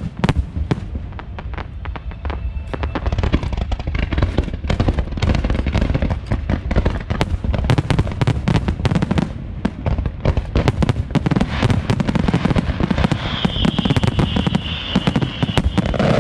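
Fireworks display in a dense barrage of aerial shell bursts: many sharp bangs a second over a continuous deep rumble. A high whistle sounds for a couple of seconds near the end.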